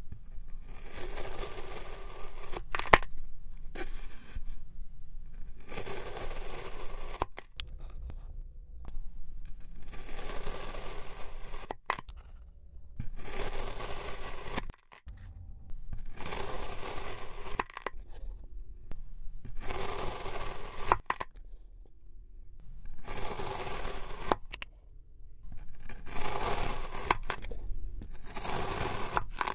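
Knife slicing through a log of kinetic sand, one cut after another: each stroke is a gritty, crunching scrape lasting about a second and a half, coming about every three seconds with short quiet gaps between. A sharp tap about three seconds in is the loudest sound.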